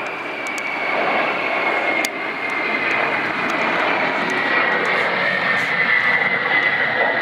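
Ilyushin Il-76 four-engined turbofan jet flying low past: a steady high engine whine that slowly falls in pitch over the wide noise of the engines, growing louder as it nears.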